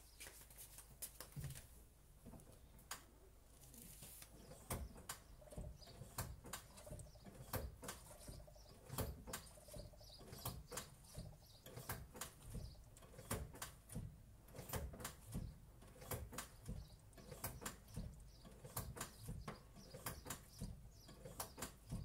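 Faint, irregular small clicks and pops, several a second: air and brake fluid bubbling out of the bleed tube into the brake fluid in the catch jar as the front caliper is bled.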